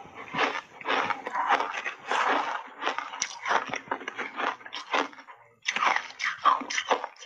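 Close-up crunching of refrozen shaved ice with milk powder as a person bites and chews a mouthful, in rapid crunches. There is a brief pause about five and a half seconds in, then the crunching starts again.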